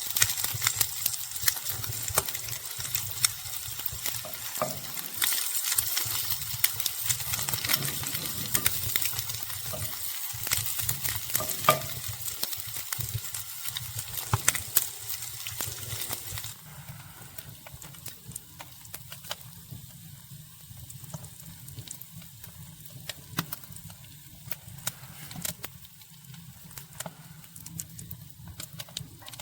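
Sausages sizzling in a frying pan, a dense hiss full of small pops. About sixteen seconds in it drops suddenly to a quieter sizzle.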